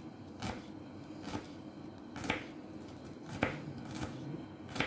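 Kitchen knife mincing garlic on a wooden cutting board: about five separate sharp taps of the blade against the board, roughly a second apart.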